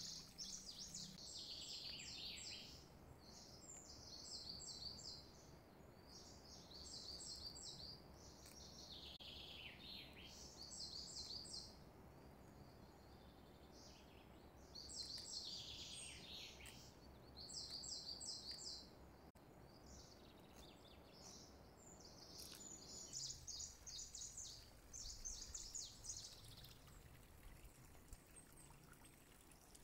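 Faint bird song: short phrases of rapid high chirps and trills repeating every second or two, some notes gliding downward, over a low background hum.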